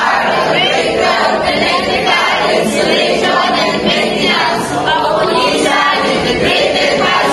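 A group of about twenty students, boys and girls together, singing in chorus.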